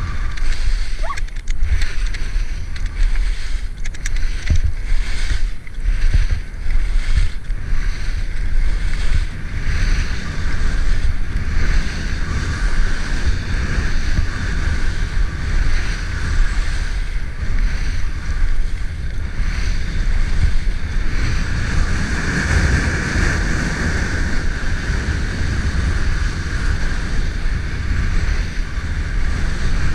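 Wind buffeting the skier's camera microphone during a fast downhill run, over the hiss and scrape of skis on groomed snow, louder about two-thirds of the way through.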